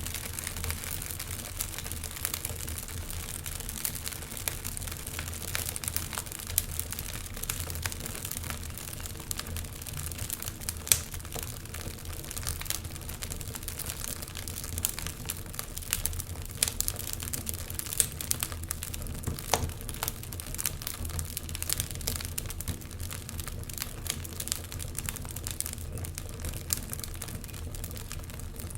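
Wood fire crackling steadily with many small sharp pops, one louder pop about eleven seconds in, over a low steady hum.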